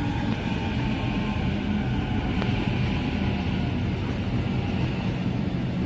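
Sydney Trains electric suburban train running at the platform: a steady hum and rumble with no change in level.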